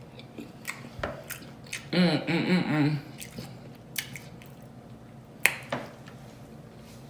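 Close-miked eating: chewing with wet lip smacks and mouth clicks, the sharpest smack about five and a half seconds in. A short murmur of the voice comes about two seconds in.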